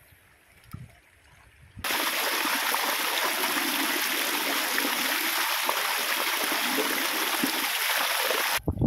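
A stream of water pouring off a rock ledge and splashing, with a kettle held in the flow to fill it. It starts suddenly about two seconds in, after a near-quiet start, and cuts off abruptly near the end.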